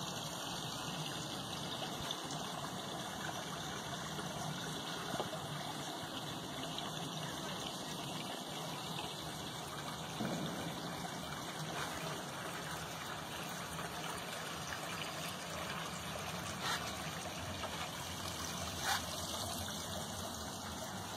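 Steady trickling of running water, with two brief clicks near the end.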